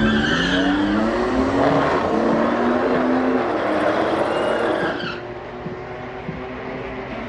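Dodge Challenger SRT Hellcat's supercharged V8 running and revving, its pitch rising and falling, with high squeals near the start and again about four seconds in. About five seconds in the sound drops to a quieter, steadier engine note.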